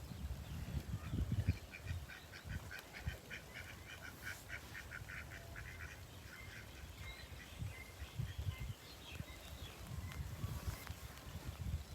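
Birds calling: a fast run of short, high calls, about four a second, for some five seconds, then scattered calls. Underneath, a low rumble of wind on the microphone.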